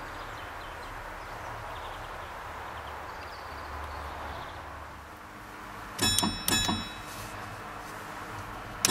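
Tram bell fitted to a Prius, struck twice in quick succession about six seconds in and again right at the end, each strike ringing on, over the car's low steady running hum. The bell is rung to warn cyclists and pedestrians of the near-silent hybrid's approach.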